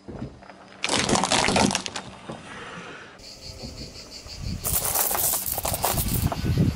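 A car tyre rolls over small toy buses, which crack and crunch under it for about a second, starting about a second in. Then a tyre rolls onto a pile of metal coins, which clink and scrape for a couple of seconds against a low rumble.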